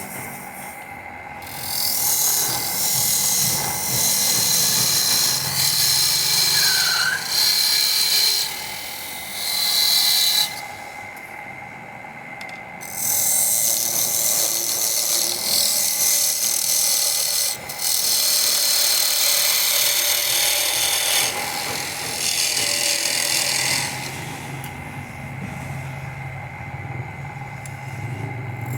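Wood lathe turning: a cutting tool shaving and scraping a spinning wooden piece in long passes, with the hiss of the cut coming and going. There is a short break about ten seconds in, and the cutting is quieter near the end, over a faint steady whine from the machine.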